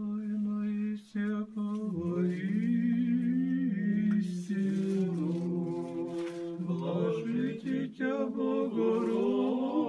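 Orthodox church chant sung a cappella: voices carry a slow, drawn-out melody over a steadily held drone note.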